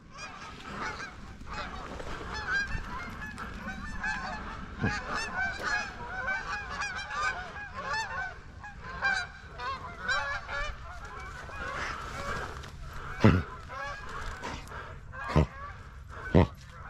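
A flock of Canada geese honking: many short, overlapping honks. Near the end, three sharp thumps stand out louder than the honking.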